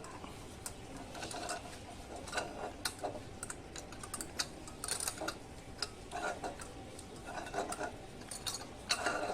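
Irregular light clicks, taps and rustles of PTFE (Teflon) thread-seal tape being wrapped by hand around the threaded end of a brass shower arm.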